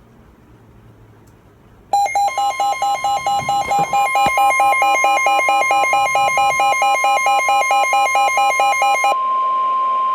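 Emergency weather alert: a pulsing electronic alarm beeps about four times a second over the steady NOAA Weather Radio warning-alert tone. It comes in suddenly about two seconds in, and near the end the beeping stops while the steady tone continues alone.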